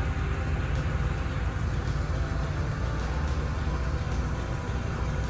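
Boat engine running steadily: a continuous low hum with engine noise on top.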